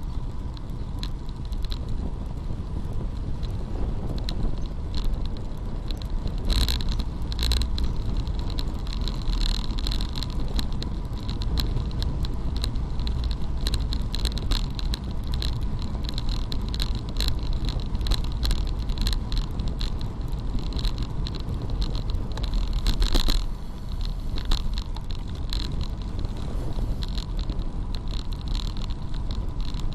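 Bicycle ridden at about 30 km/h: steady wind rush on the microphone and tyre rumble over brick paving, with a fine continuous rattle and a few louder jolts.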